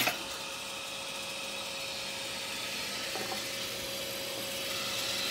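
Steady whir of the running bandsaw and shop dust extraction, with a faint knock about three seconds in. The bandsaw's blade has snapped while it was idling.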